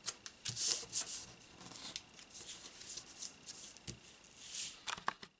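Hands handling and pressing paper cutouts down onto a sheet of cardstock: irregular papery rustles, crinkles and rubs.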